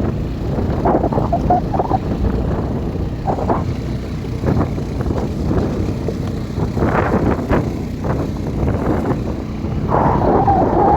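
ATV engine running while riding a rough trail, with wind buffeting the microphone.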